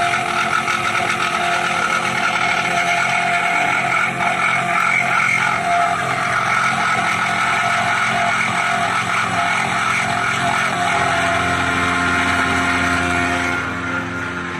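CNC milling machine cutting metal: a steady, loud machining whine with several held tones over grinding noise, which drops to a lower level near the end.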